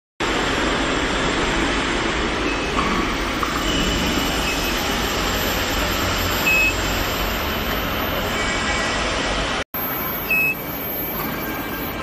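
Steady workshop machine noise with two short high beeps, about six and a half and ten and a half seconds in, typical of an induction heater's control panel. The sound drops out for a split second near the ten-second mark.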